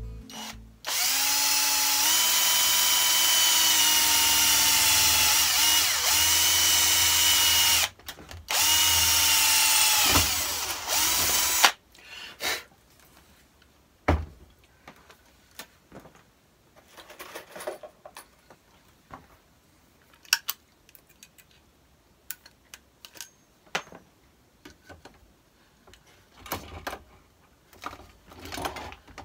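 Cordless drill boring through galvanized steel sheet in three runs, one long and two short, its motor pitch steady and sagging as each run ends. After that come scattered sharp clicks and knocks of hand tools and a hand pop-rivet gun being worked.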